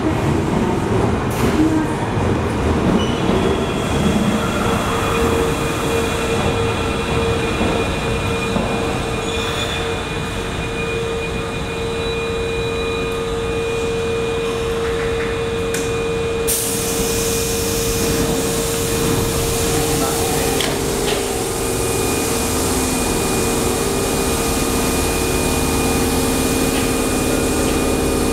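Osaka Subway 25 series train pulling into an underground station and braking to a stop: a rumble that eases off, with a steady whine as it slows. About sixteen seconds in a steady hiss starts suddenly, and the standing train hums.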